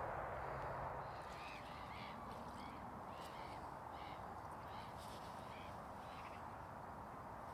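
Faint bird calls: a run of short repeated calls, about two a second, from about a second and a half in until about six seconds in, over a steady outdoor hiss.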